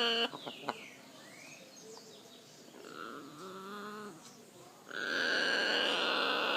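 Red macaw vocalising: a few clicks and soft low calls, then, about five seconds in, a loud harsh squawk that carries on.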